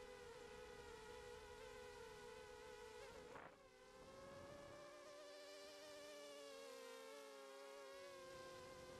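Faint, steady insect-like whine of a ZMR 250 quadcopter's four Cobra 2204 1960 kV brushless motors spinning Gemfan 5x3 props, heard from the onboard camera. About three and a half seconds in, the pitch dips sharply and comes back; after that the tones waver up and down with throttle changes.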